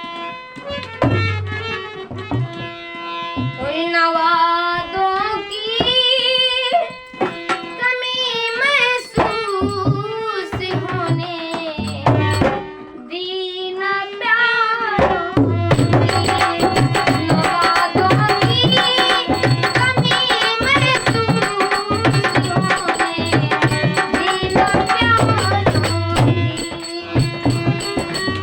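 Instrumental opening of a ghazal: tabla playing under a melody line that bends and wavers. About halfway through, the full accompaniment comes in and the tabla settles into a steady rhythm.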